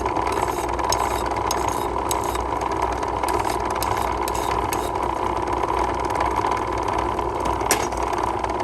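Steady hum of a running shop machine, with a few short light scrapes and clicks from hand-filing a key blank.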